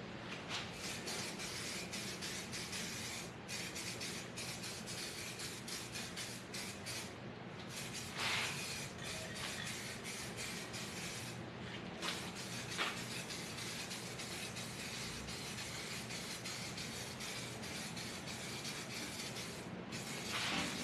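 Aerosol can of SEM bumper coating hissing as light coats are sprayed onto a plastic bumper. The hiss runs in long passes with a few brief breaks.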